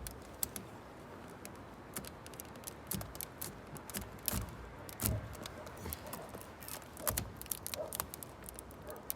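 Polycarbonate greenhouse sheet being cut by hand: irregular sharp clicks and snaps from the blade and the flexing sheet, with no regular rhythm.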